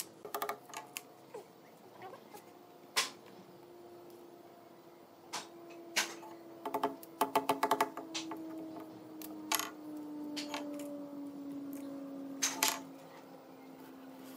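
Claw hammer tapping a nail into a thick wooden panel: single ringing taps every few seconds and a quick run of about six taps about seven seconds in. A faint steady hum slowly falls in pitch underneath.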